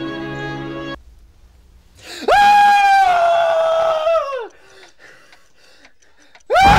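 Soft music stops about a second in. Then come two loud, high-pitched screams of shock: one about two seconds long that drops away at its end, and a second that starts near the end.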